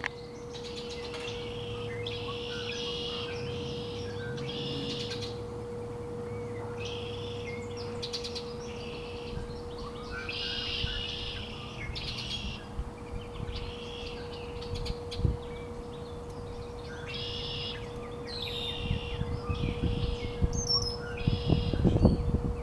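Songbirds singing in spring, one repeating a short trilled phrase every second or two, over a steady hum. Near the end a low rumble grows and becomes the loudest sound.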